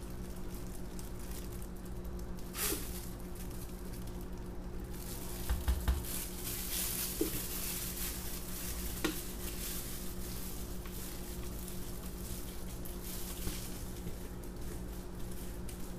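Soft handling noise: plastic gloves rustling and a spatula scraping soap batter from a plastic pitcher, over a steady low hum, with a few light clicks and soft knocks.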